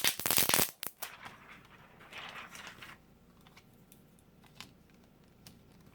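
Protective plastic film being peeled off a new laptop LCD screen: a loud crackling rip in the first second, a softer rustle around two seconds in, then a few faint clicks.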